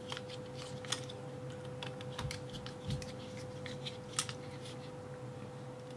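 Scattered light clicks and ticks of small metal lock parts and a screwdriver being handled while the oval lock cylinder is taken apart, with sharper clicks about a second in and about four seconds in and a couple of soft thumps in between.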